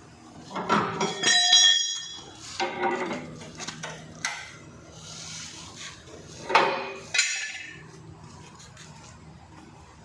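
Metal objects clanking and knocking in a string of separate hits. One, about a second and a half in, rings out with a clear metallic clink.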